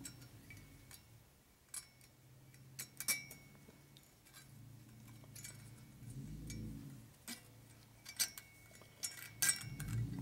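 Scattered light metallic clicks and clinks of small parts and tools being handled, some with a short ring.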